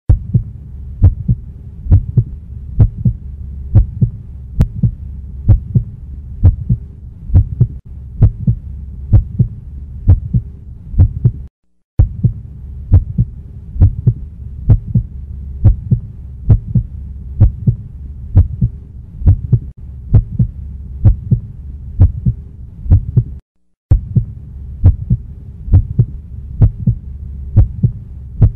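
Steady low double thumps like a heartbeat, about one a second, over a faint low hum. The sound cuts out completely for about half a second twice, near twelve and twenty-four seconds in.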